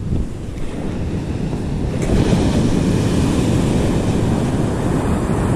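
Ocean surf breaking and washing up the sand, with wind buffeting the microphone; the wash swells louder about two seconds in.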